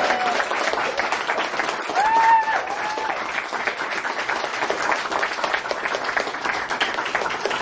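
Guests clapping steadily, with one person's short whooping cheer about two seconds in.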